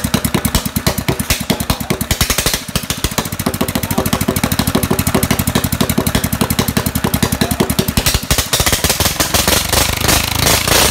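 Kubota horizontal single-cylinder engine, converted from diesel to run on petrol, running with a rapid, even firing beat. About eight seconds in it dips briefly and then revs up, running faster and louder.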